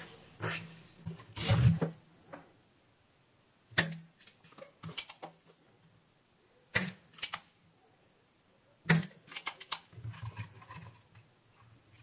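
Spring-loaded desoldering pump firing three times, sharp snaps about two to three seconds apart, sucking solder from the joints of a faulty capacitor on a switching power-supply board. Lighter clicks and handling of the tools come between the snaps.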